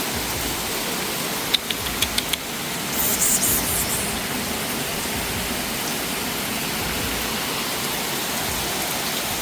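Steady hiss of falling rain, with a few sharp clicks about a second and a half in and a brief, brighter burst of hiss about three seconds in.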